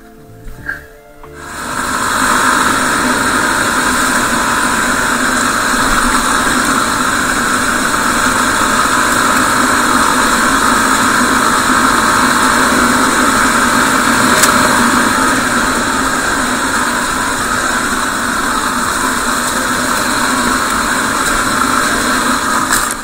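Motorcycle engine running steadily at an even pace, starting about a second and a half in and cutting off abruptly at the end, with music faintly underneath.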